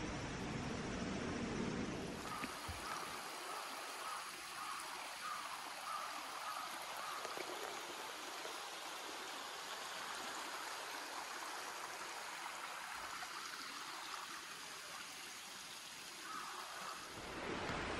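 Clear mountain stream flowing over rocks: a steady rushing and babbling of water, setting in about two seconds in.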